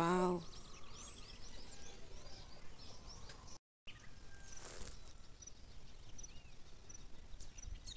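Several small birds chirping and calling over a faint outdoor background, busiest in the first half; the audio drops out completely for a moment a little past halfway, then only scattered faint chirps follow.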